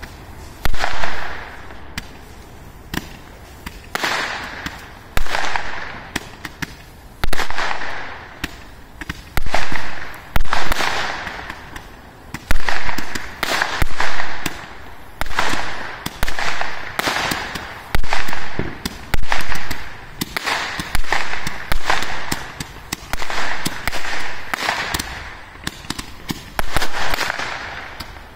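Ground-launched fireworks firing a long, rapid series of shots, about one every second or so. Each shot is a loud rushing burst that swells and cuts off sharply, with scattered sharp cracks and pops in between.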